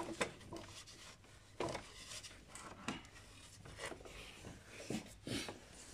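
Faint scattered clicks, knocks and rubbing of parts being handled under the hood as the radiator cooling fan assembly is worked loose and lifted out, with a few sharper knocks among them.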